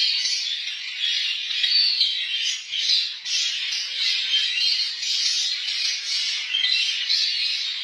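A dense, continuous chorus of many small cage birds chirping and chattering at once, high-pitched.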